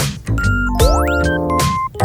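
Background music with a beat and held notes, with a rising sweep about a second in.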